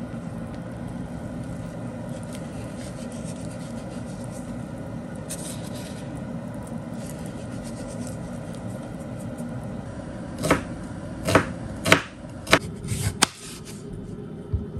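A pot of broth simmering on the stove, a steady bubbling hiss. About ten seconds in come a quick series of six or so sharp knocks, a kitchen knife cutting a beet against a bamboo cutting board, with one more knock near the end.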